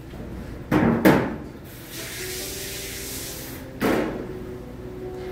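Kitchen clatter: two loud bangs with a ringing tail about a second in and another near four seconds, with a steady hiss lasting about two seconds in between.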